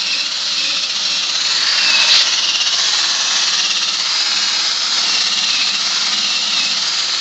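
Cordless drill spinning a wire brush wheel against the steel wheel rim's bead seat: a steady whir and scrape of wire bristles on metal, scouring the bead clean before sealant goes on.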